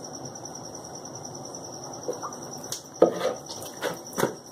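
Hands kneading soft paratha dough in a plastic bowl: a few soft thumps and squishes, the loudest about three seconds in, over a steady high-pitched trill.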